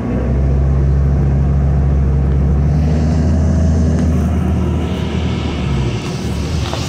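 New Flyer D40LF diesel transit bus heard from on board, its engine pulling with a strong steady low drone that climbs slightly about three seconds in. Near the end the engine note drops away and a hiss comes up.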